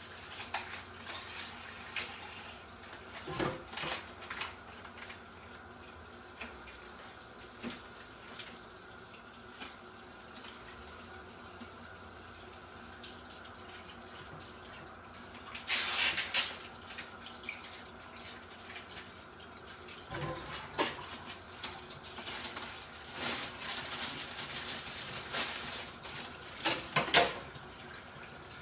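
Kitchen tap water splashing into a sink in spurts while cuttlefish are cleaned under it, with scattered knocks and clatters. A louder rush of water comes about halfway through, and more rushes and knocks follow near the end.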